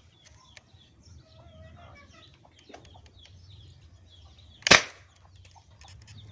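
A single sharp shot from a homemade pump-action PVC air rifle, about three-quarters of the way in.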